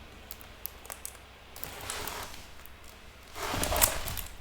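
Diamond painting kit's canvas and papers being handled: a few light clicks, then two rustling swishes about two and three and a half seconds in, the second louder.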